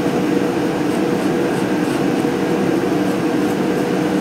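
Shop heater running with a steady drone.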